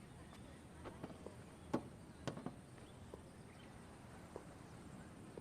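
Faint steady background with a handful of light knocks and clicks, the sharpest about two seconds in.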